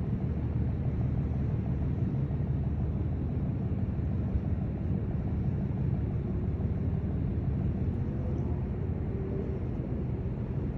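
Steady low rumble aboard a cruise ship as it docks, even and unbroken, with no distinct events.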